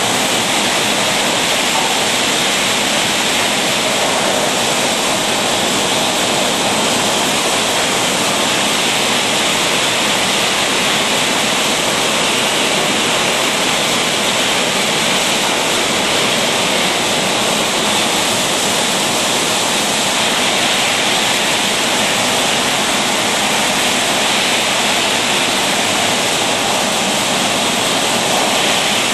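A steady, even rushing hiss that holds at one level and does not change.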